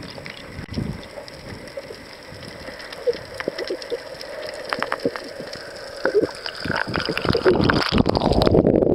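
Water sloshing and bubbling around an underwater camera, heard muffled, with scattered clicks and small bubble pops. It grows louder and busier over the last few seconds as the camera nears the churning, bubbly surface.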